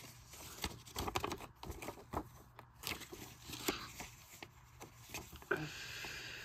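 Paper inserts and coupons being handled: scattered light rustles and taps, with a short steadier rustle near the end.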